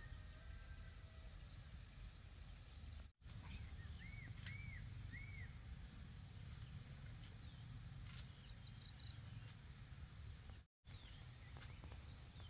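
Quiet rural outdoor ambience: a low steady background rumble, with a bird calling three short arched chirps about four seconds in and fainter chirps later on. The sound drops out completely for a moment twice, about three seconds in and near the end.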